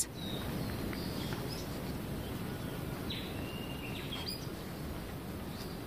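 Natural forest ambience: a steady low background hiss with a few faint, short chirping calls, one of them a held note about three seconds in.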